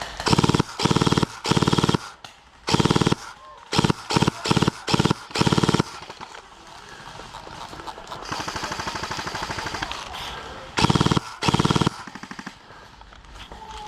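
Airsoft guns firing in full-auto bursts with a fast, even rattle. About ten short bursts come in quick succession over the first six seconds, a fainter rapid rattle follows in the middle, and two more loud bursts come near the end.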